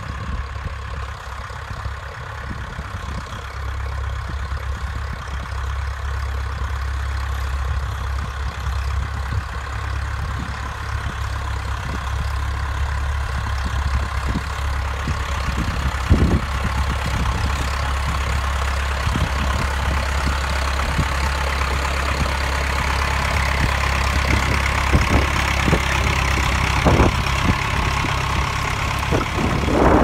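Massey Ferguson 500-series tractor's diesel engine running steadily while ploughing, growing gradually louder through the second half, with a few sharp clunks.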